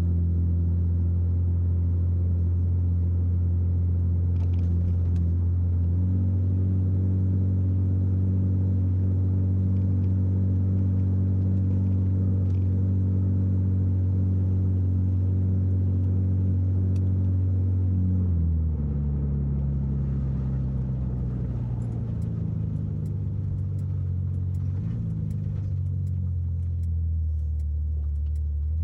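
1964 Chevrolet Corvair Monza's air-cooled rear-mounted flat-six running while driving, heard from inside the cabin as a steady low drone. The engine note steps up slightly about six seconds in, then drops about eighteen seconds in and runs lower for the rest.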